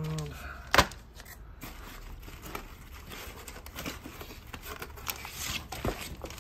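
Hard plastic graded-comic slabs being lifted out of a cardboard shipping box and set down on a stack, with rustling of plastic bags, cardboard and bubble wrap. One sharp plastic clack comes about a second in, with a few lighter knocks later.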